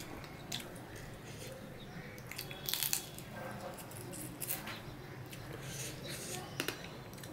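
Close-up eating sounds of rice and curry eaten by hand: wet chewing and lip smacks, with fingers squishing rice on a steel plate. A cluster of louder smacks comes about three seconds in.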